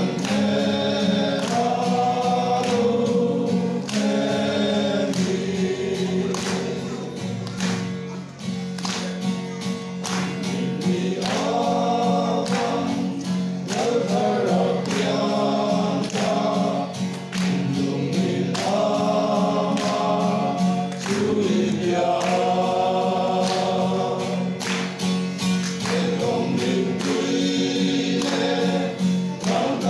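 A small group of men singing a hymn together, held notes moving from phrase to phrase, over a regular beat of strikes.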